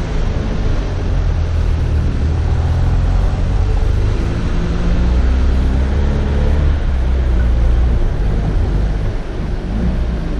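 Off-road 4x4's engine running in a steady low drone as the vehicle drives slowly along a snowy dirt track, its note rising and falling a little.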